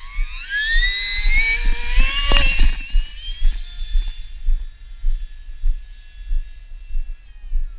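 Stryker RC flying wing's electric motor and propeller whining, the pitch rising steadily over the first few seconds as it throttles up on a 4-cell (4S) LiPo battery, loudest as it climbs past, then settling into a steadier, fainter whine as it flies off. Wind rumbles on the microphone throughout.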